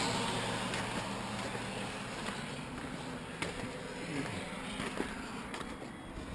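Vehicle noise fading away, leaving a steady low engine hum with a few light clicks.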